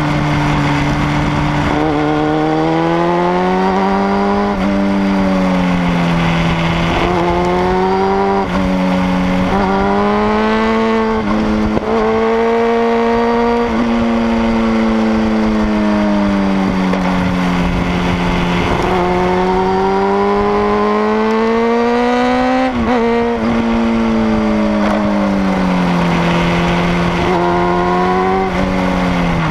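Sport motorcycle engine pulling hard as the rider works through a run of bends. Its pitch climbs under throttle, drops sharply at each gear change, and sinks again as the bike slows for the corners. Wind rumbles on the microphone underneath.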